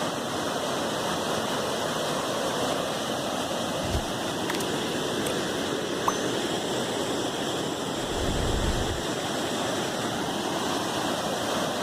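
Waterfall: steady rushing water with no let-up, plus a brief low thump about four seconds in and a longer low rumble around eight seconds in.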